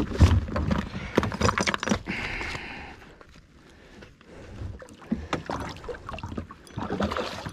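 A hooked northern pike thrashing and splashing at the side of a kayak, with repeated knocks and bumps against the plastic hull. The commotion eases for a moment in the middle, then picks up again.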